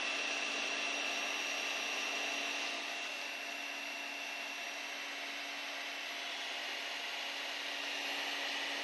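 Cooling fans of a running desktop PC: a steady rush of air with a faint low hum and a high tone held underneath, a little quieter from about three seconds in.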